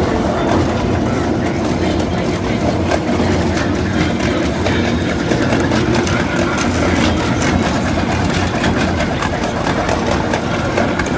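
Ride-on railroad train running steadily along the track: a continuous rumble of wheels on rail and the running train.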